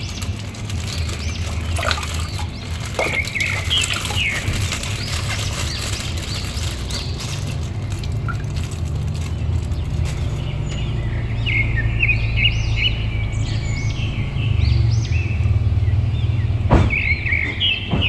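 Water sloshing in a plastic basin and a plastic bag crinkling as toy figures are washed by hand, over a steady low hum. The splashing and crinkling die down about ten seconds in, and small birds chirp in the background, most busily in the second half.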